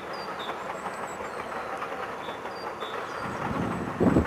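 Steam train running along the line, heard from afar as a steady rumble of the locomotive and coaches on the track. Near the end a gust of wind buffets the microphone.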